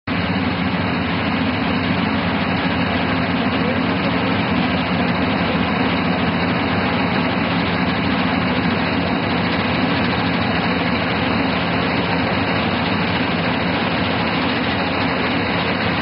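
Balkar-654 self-propelled combine harvester running steadily as it cuts standing wheat. Its engine and harvesting machinery make a loud, even mechanical noise with no change in pace.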